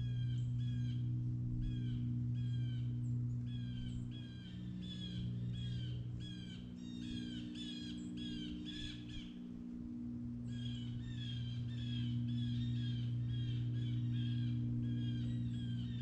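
Crows cawing in a long run of short, harsh calls, two or three a second, with a brief pause about ten seconds in. A steady low drone runs underneath.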